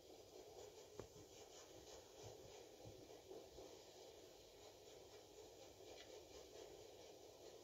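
Near silence: faint room tone with a few soft ticks and scratches, and one slightly sharper tick about a second in.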